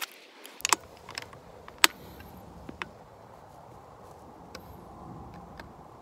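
Sharp clicks and knocks from hands handling an AR-style rifle, several in the first three seconds with the loudest near two seconds in, then only a few faint ticks.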